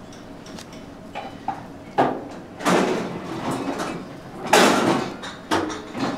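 Busy restaurant kitchen clatter: a sharp knock about two seconds in, then several loud rushing, scraping noises, the loudest near the end.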